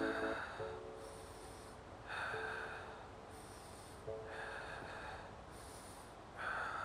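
A man's slow, deep yoga breathing while holding a stretch: four audible breaths, about two seconds apart.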